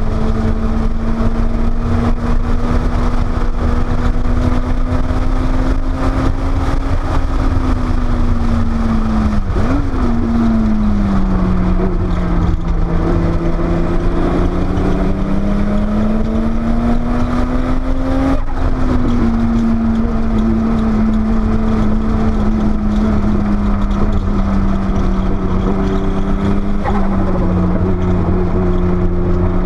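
Porsche 930 Turbo's air-cooled turbocharged flat-six running hard on track, heard from inside the car. The engine note sinks and climbs slowly as the car slows for and powers out of corners, with a sudden drop in pitch about two-thirds of the way through, over heavy steady wind and road noise.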